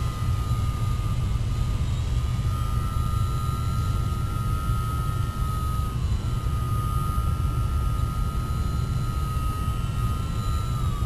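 RC model airplane's engine running with a steady high whine as it flies passes, the pitch dipping slightly about six seconds in and again near the end. A steady low rumble lies underneath.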